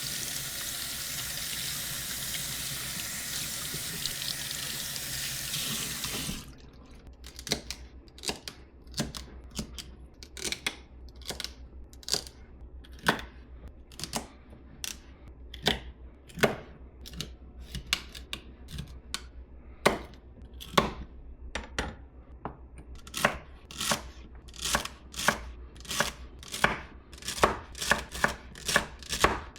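A kitchen tap runs for about six seconds and stops. Then a knife chops celery on a cutting board: single cuts about a second apart at first, quickening to two or three a second near the end.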